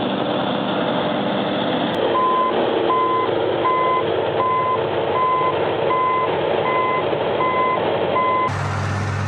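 Reversing alarm on a heavy earthmoving machine beeping evenly, a little more than once a second, over the machine's running engine. Near the end the beeping stops and a deeper, steady engine hum takes over.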